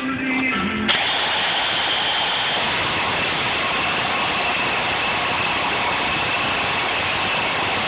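Impact wrench running steadily on a lug nut, starting abruptly about a second in, driving the nut down over a spacer to pull a new wheel stud into the hub flange.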